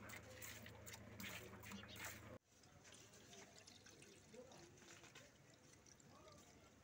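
Squirts of milk from hand-milking a cow hitting milk in a steel bucket, coming in a quick regular rhythm. About two and a half seconds in, this cuts off suddenly and gives way to fresh milk trickling as it is poured from a steel jug through a plastic strainer into a pot. Both sounds are faint.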